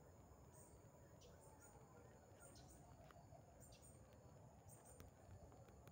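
Near silence: quiet outdoor ambience with faint, short high chirps repeating every second or so.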